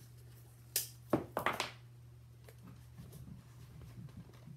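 Blue painter's tape and thin cardboard handled by hand as tape is pressed onto a curved cardboard piece: a few sharp crackles and taps about a second in, then soft rustling.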